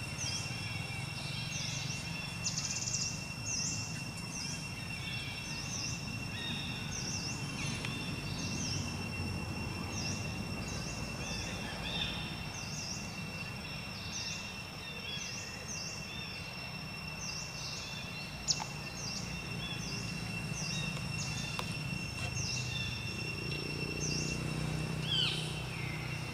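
Outdoor ambience: birds chirping in short repeated calls over a steady high-pitched insect drone and a low rumble. A low engine hum comes in near the end.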